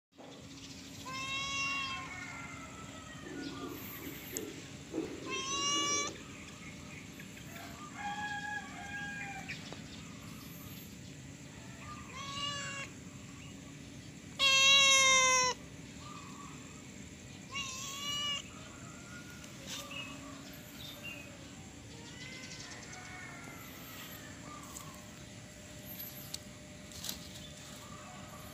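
A cat meowing repeatedly, about six separate calls, the loudest and longest (about a second) near the middle.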